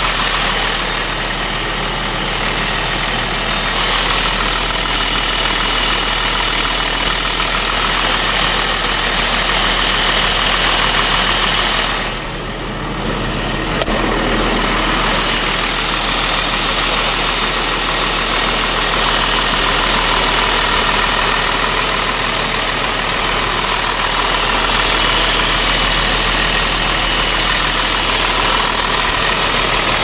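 Caterpillar C7 inline-six diesel engine of a rear-engine bus idling steadily, heard close up at the open engine compartment, with a thin steady high whine over it. It dips briefly quieter about twelve seconds in.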